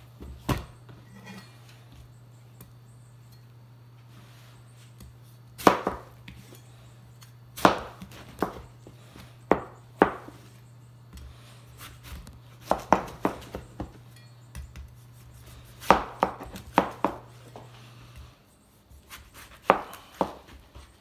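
Large kitchen knife slicing down through watermelon rind and knocking on the cutting board: a dozen or so sharp chops, irregularly spaced, some in quick clusters of two or three. A low steady hum runs underneath and cuts off abruptly about three-quarters of the way through.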